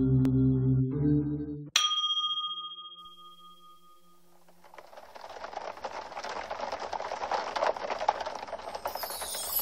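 Music stops, and a single bright chime rings and fades out. Then rain fades in, pattering on the car's windshield and roof, heard from inside the parked car.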